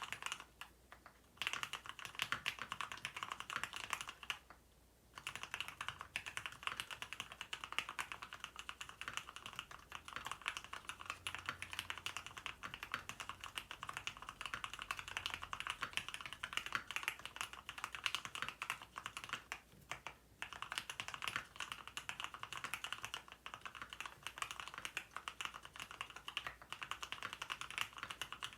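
Mechanical keyboard being typed on at a steady fast pace, a dense stream of crisp keystrokes with a few short pauses. The plate foam has been taken out, so the keys sound resonant and droplet-like ('torok-torok').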